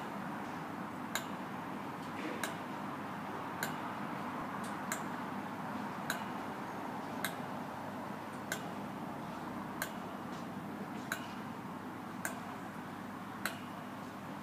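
Steady hum from an electric multiple unit standing at the platform, with a sharp click about every second and a quarter.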